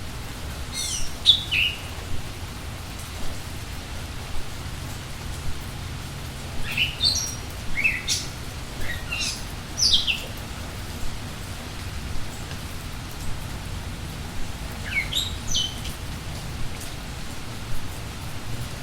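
A small bird calling during steady rainfall. Short chirps sweep downward in pitch and come in three clusters: near the start, a longer run in the middle, and a few more later on. Under them is the even hiss of the rain and a low rumble.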